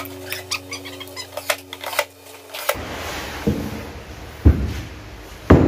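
White-faced plywood drawer panels being handled on a workbench, knocking against each other and the bench a few times, the loudest knocks near the end. Before that, a quick run of sharp clicks over a steady hum stops abruptly about halfway through.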